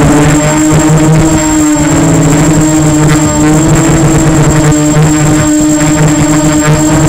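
Motor and propeller of an FPV model aircraft, heard close up from the onboard camera: a loud, steady drone whose pitch shifts slightly with the throttle, with a thin high whine above it.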